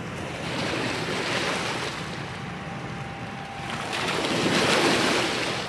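Wind rushing on the microphone over the low drone of a passing river cargo ship, swelling twice.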